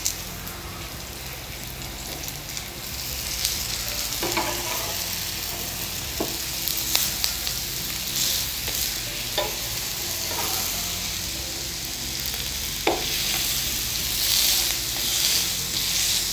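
Ragi (finger millet) and bottle gourd adai sizzling in oil on a flat griddle as they cook and brown. A slotted metal spatula clicks and scrapes against the griddle a few times as the flatbreads are turned and pressed.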